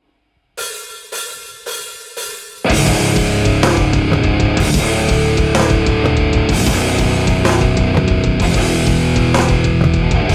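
Heavy rock band starting a song: four sharp hits about half a second apart, each ringing out, then distorted electric guitar, bass and a full drum kit with cymbals come in together, loud and continuous.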